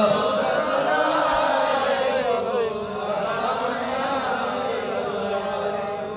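A man's voice chanting in a drawn-out, wavering melody, the sung delivery of a Bengali waz sermon.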